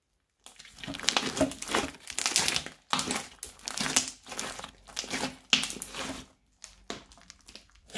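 Crunchy bead-studded slime being squeezed and kneaded by hand, giving dense crackling in bursts. It starts about half a second in and turns sparser and quieter near the end.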